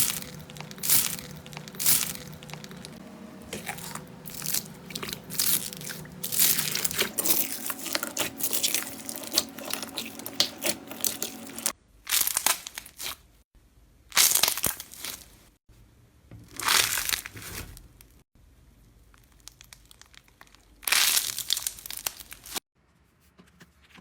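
Slime being worked by hand, crackling and crunching densely for about twelve seconds, then in four separate short bursts of crinkly crackles.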